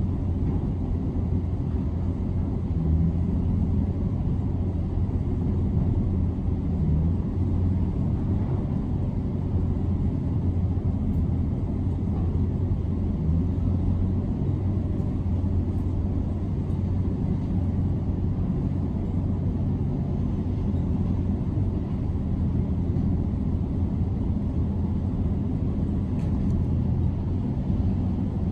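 Steady low rumble of heavy demolition machinery running, muffled through an office window.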